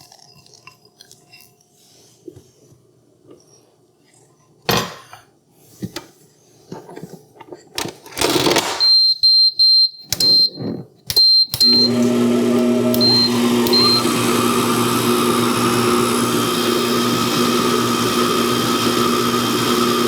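A few knocks and clatter, then a run of short high beeps from the Vevor 600-watt stand mixer's control panel. About two thirds of the way in, its motor starts and runs steadily with a hum, beating peanut butter into the creamed butter, sugar and eggs.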